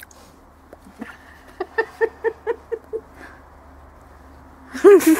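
A rapid run of about seven short, high-pitched yaps, roughly five a second, from an animal. Near the end comes one louder, longer call.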